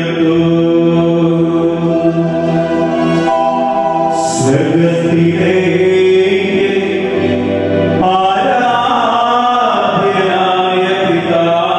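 A priest chanting the Syro-Malabar words of consecration into a microphone: a male voice holding long sung notes, changing to a new phrase about four seconds in and again near eight seconds.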